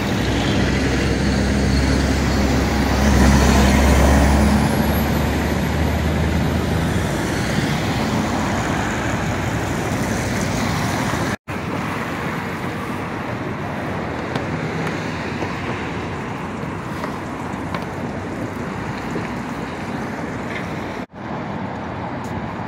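Road traffic: a truck's engine running as it drives past close by, with a low drone that fades after about six seconds. Then steady traffic noise, broken by abrupt cuts about eleven and twenty-one seconds in.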